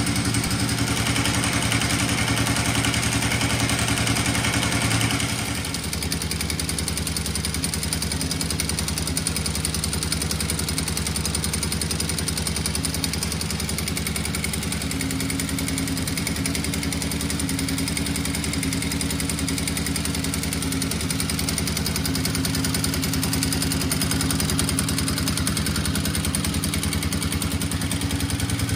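Ducati air-cooled L-twin motorcycle engine idling steadily with a rattling clatter, like a bag of spanners, the kind of rattle typical of a Ducati dry clutch.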